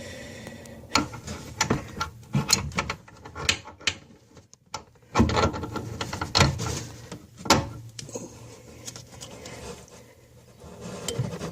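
Irregular knocks and clicks of a basin wrench being worked on the nut that holds a bathroom tap, under the sink.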